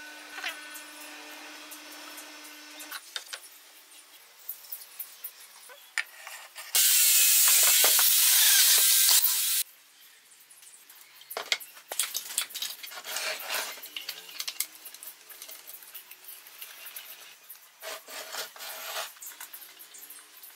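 Woodworking sounds at a bench: boards and tools knocked, scraped and rubbed on wood. A steady machine hum stops about three seconds in. About a third of the way through, a loud steady rushing noise runs for about three seconds, then cuts off suddenly.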